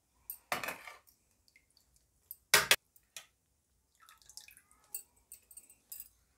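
Water splashing and dripping as handfuls of wet boiled spinach are lifted out of a bowl of cold water and dropped into a mixer-grinder jar. The loudest is a short splash about two and a half seconds in, followed by softer scattered drips and handling noises.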